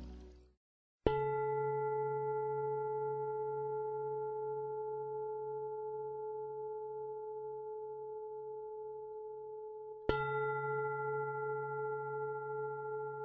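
Music fading away into a brief silence, then a meditation bell struck twice about nine seconds apart, each stroke a clear pure tone that rings on and fades slowly.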